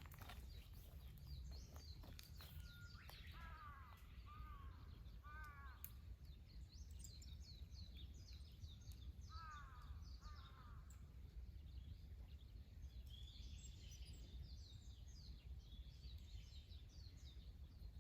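Faint outdoor birdsong: a few short, harsh calls, three close together and then two more a few seconds later, over scattered high chirping from smaller birds, with a low steady rumble of background noise.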